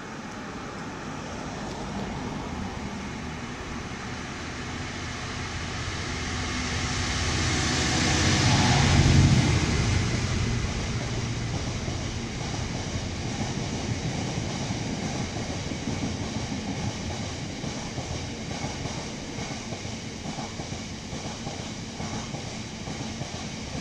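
Diesel freight locomotive approaching and passing beneath, its engine loudest about nine seconds in. A steady rumble and clatter of loaded aggregate wagons rolling over the rails follows.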